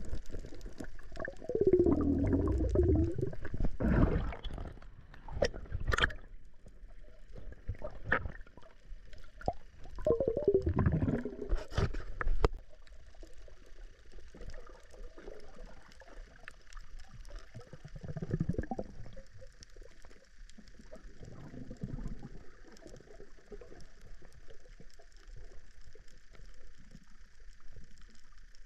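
Underwater sound picked up by an action camera: gurgling, rushing water with a few sharp knocks during the first half, then a fainter steady hiss with faint high steady tones.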